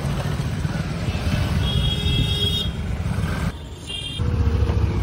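Road traffic passing: a steady low rumble of vehicle engines, with a brief high tone about two seconds in and again around four seconds.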